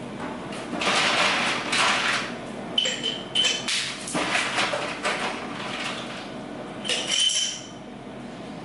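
Ice cubes rattling and clattering into a glass mason jar, with a few sharp ringing clinks of ice striking the glass.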